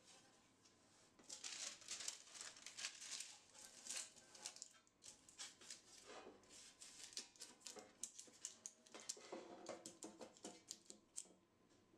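Faint dry rubbing and many small scratchy taps of fingers working inside a metal loaf pan, spreading a coating of flour over its base and sides. It starts about a second in and stops shortly before the end.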